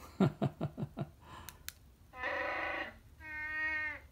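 Chewbacca (Wookiee) growls and roars played by a Brickstuff Lego light-and-sound kit: a quick run of gruff barks in the first second, then two longer roars, the second falling in pitch.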